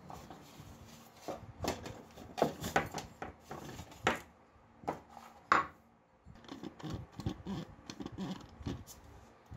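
A lacquered metal lamp arm and its old wiring handled on a worktop as the wires are pulled out of the arm tube: irregular light knocks, clinks and scraping. There is a short lull about six seconds in, then a run of small quick knocks.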